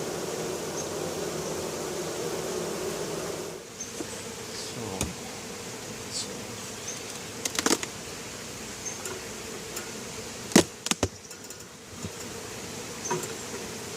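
Honeybees buzzing around an open hive: a steady droning hum that drops off about three and a half seconds in, leaving a fainter buzz. Several sharp knocks and clicks come later, the loudest about ten and a half seconds in.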